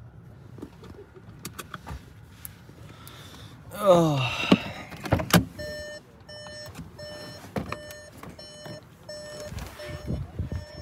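A short falling vocal sound about four seconds in, then a car door opening with a couple of sharp clicks. After that the car's electronic warning chime beeps steadily about twice a second.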